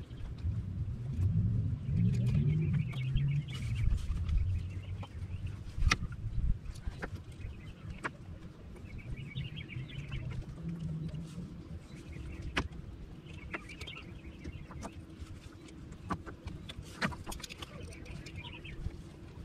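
Scattered clicks and taps of hands working small hardware, over a low rumble. Birds call in short bouts of chatter every few seconds.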